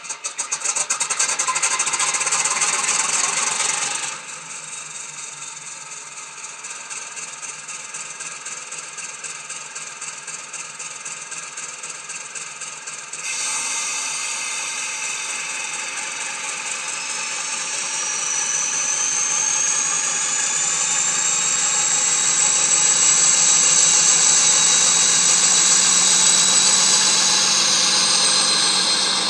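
Factory-fitted ESU sound decoder in a model Class 56 diesel locomotive, playing through its small onboard speaker, with no bass. The engine starts with a loud, fast rattling clatter for about four seconds, then settles to a quieter, evenly pulsing idle. About 13 seconds in it steps up louder, and a whine rises in pitch as the locomotive pulls away.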